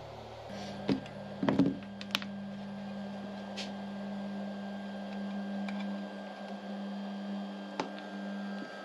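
Stepper motor of a CNC router's Z axis driving the spindle slowly down in a probing run: a steady hum from about half a second in, with a few scattered clicks and taps. The probe lead is not clipped to the bit, so the touch plate never triggers the stop.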